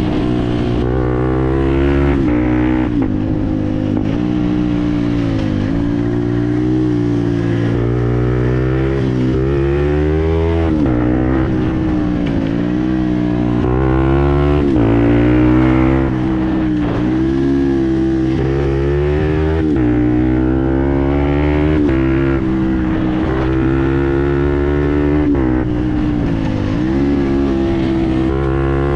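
2020 Fantic Performance 125 Motard's single-cylinder four-stroke engine through a GPR exhaust, ridden hard: the pitch climbs repeatedly and drops sharply at each gear change, with a few longer easings-off between pulls.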